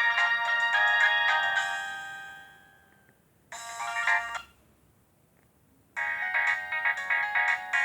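Nokia 105 ringtone melody in bright electronic tones fading out about three seconds in. A short burst of sound follows about a second later. After a pause, the next ringtone starts near the end with a quick, rhythmic pattern of repeated notes.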